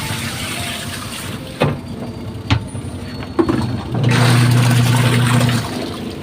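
Water running, a few sharp clicks, then a twin-tub washing machine's wash motor hums steadily for about a second and a half before stopping. It is running with a newly replaced gear case, without the grinding noise it had before.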